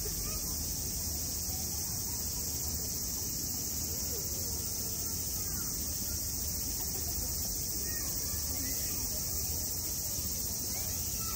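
Steady high-pitched insect chorus, with faint scattered chirping calls.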